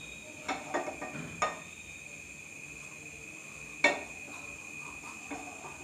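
A few light knocks and clinks of a non-stick frying pan against the gas-stove burner as it is tilted to spread the oil, over a steady high-pitched whine.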